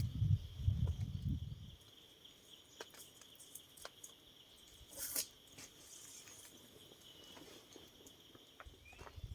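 Forest insects droning steadily in one high, even note, with scattered small clicks and a brief hiss about five seconds in. A low rumble comes and goes over the first two seconds and returns at the very end.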